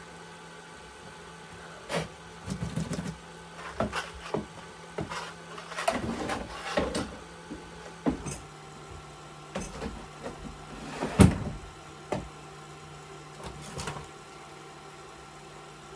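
Intermittent short scraping and rubbing sounds with scattered clicks and one louder knock about 11 seconds in, as a glued repair is worked smooth by hand, over a low steady hum.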